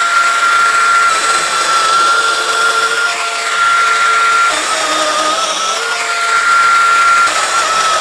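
Festool Domino DF 700 XL joiner running continuously while it plunge-cuts mortises into the end of a board. It is a steady high motor whine that sags slightly in pitch a couple of times under load.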